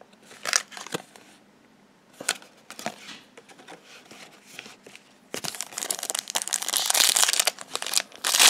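A few light clicks and rustles of trading cards being handled, then about five seconds in a foil trading-card booster pack crinkles loudly as it is torn open.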